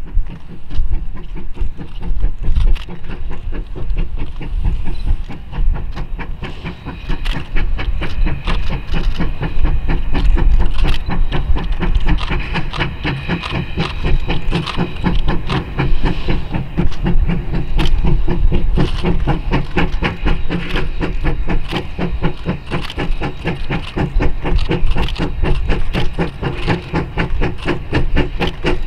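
Steam locomotive No. 152 pulling a passenger train, its exhaust chuffing in a quick, steady rhythm over hissing steam.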